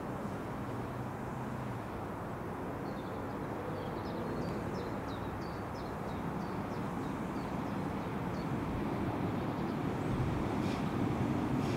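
Railway station ambience: a steady low rumble of engines and traffic that slowly grows louder. Small birds chirp faintly from about three seconds in until near the end.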